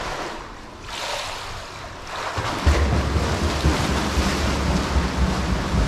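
Swimmer's hard flutter kick splashing water in a pool, starting about two and a half seconds in after a quieter underwater glide, with a steady low rumble under the splashing.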